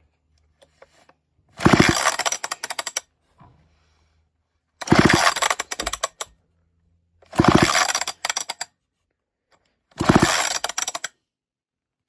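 Old chainsaw's recoil pull starter yanked four times, each pull spinning the engine over with a quick rapid run of strokes for about a second, while it is being checked for spark.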